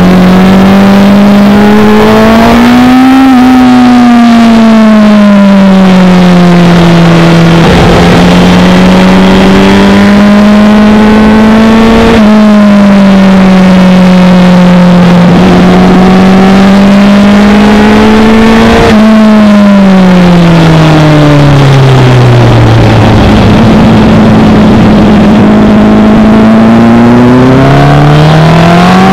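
Onboard sound of a Honda CBR1000RR (SC77) inline-four at track speed. The engine note rises and falls with the throttle, dips sharply at a gear change about twelve seconds in, and winds down steeply into a corner around twenty seconds. It then builds again near the end, all under a steady rush of wind noise.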